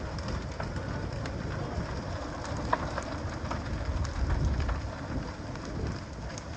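Large timber barn fire burning: a steady low rumble with scattered crackles and pops, and one sharper pop a little under three seconds in.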